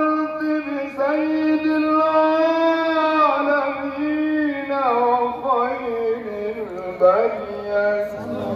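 A solo male voice chanting Arabic Maulid poetry in long, held melodic notes that slide from one pitch to the next, the melody sinking lower in the second half.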